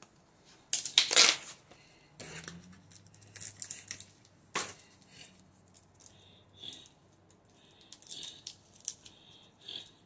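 Cream cheese package being torn open, its box and foil wrapper crinkling in a few loud, sudden rustles over the first five seconds, followed by quieter handling scuffs.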